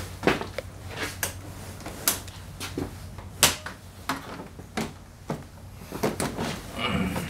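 Irregular clicks and knocks of a Honda PCX 125 scooter's hinged seat and plastic body being handled as the seat is lifted, with a cluster of louder knocks near the end. A steady low hum runs underneath.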